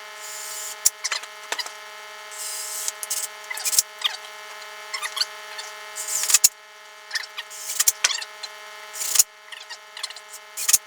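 A power drill-driver driving screws into the wooden wine rack in several short runs, with clicks and knocks of handling screws and parts, over a steady hum.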